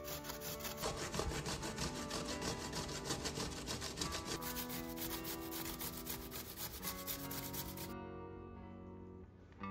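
Raw peeled potato grated on a stainless-steel box grater: quick, regular scraping strokes, several a second, that stop about eight seconds in. Soft guitar music plays underneath.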